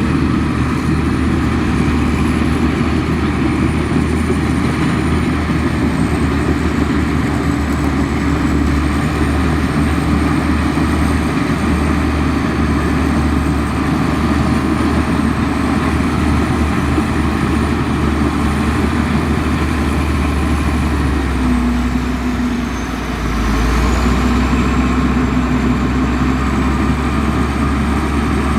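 A Komatsu bulldozer's diesel engine runs steadily under work, with a faint wavering high whine above the low engine note. The engine sound dips briefly about 22 seconds in, then comes back up.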